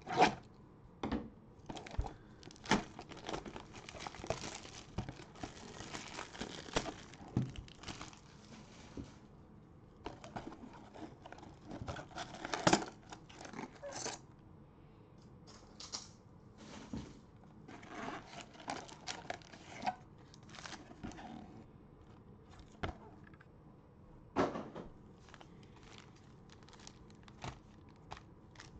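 A cardboard trading-card box being pulled open and card-pack wrappers being torn and crumpled by gloved hands: irregular tearing and crinkling with sharp snaps, loudest right at the start and about 13 seconds in.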